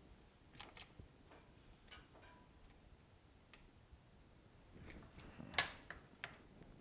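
Faint scattered clicks and taps from gloved hands handling a smartphone, with one sharper knock about five and a half seconds in.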